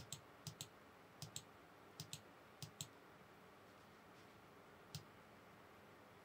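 Faint computer mouse clicks, mostly in quick pairs: about ten over the first three seconds, then a single click near five seconds, over near-silent room tone.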